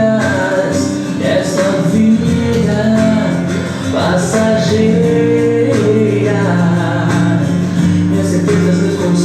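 A worship song: singing over guitar accompaniment.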